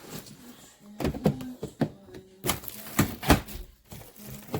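Irregular plastic knocks and clicks, about half a dozen over a few seconds, as parts of a portable twin-tub washing machine are pushed and worked into place. A faint low hum runs underneath.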